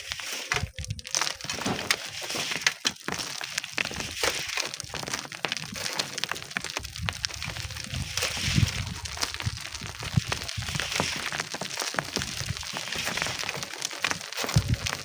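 Dense crackling and crunching of sand and stones being worked, with many short sharp clicks and dull low gusts of wind on the microphone.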